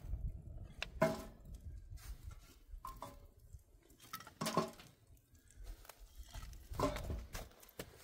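Pieces of split firewood stacked by hand, knocking together in a series of wooden clacks, the loudest about a second in, midway and near the end, each with a short hollow ring. A wood fire burns in the fire pit with a low rumble underneath.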